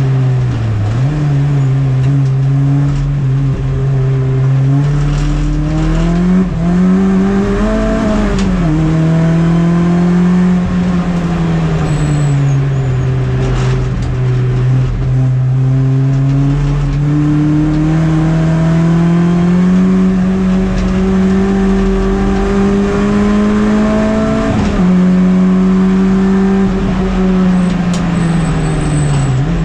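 MINI race car's engine heard onboard at racing speed, loud and continuous. The engine note climbs and falls with the throttle, with sudden drops at gear changes, one about a third of the way in and another a few seconds before the end.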